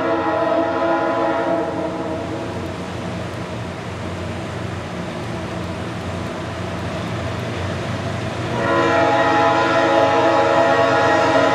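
Leslie S5T five-chime air horn on a CSX diesel locomotive sounding a multi-note chord that breaks off about a second and a half in, leaving the steady noise of the train, then sounds again, louder, about eight and a half seconds in.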